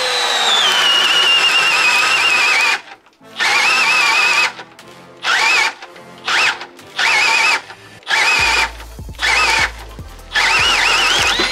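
Milwaukee M12 Fuel Gen 2 cordless hammer drill boring a 1¾-inch Irwin Speed Bore spade bit into pressure-treated lumber. The motor whine sinks steadily in pitch under the load for a couple of seconds and breaks off. Then it comes in a string of short start-stop bursts, each whine rising and falling.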